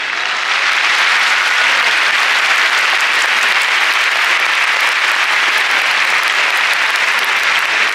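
Loud, dense applause from a large stadium crowd of football supporters, swelling about half a second in and then holding steady.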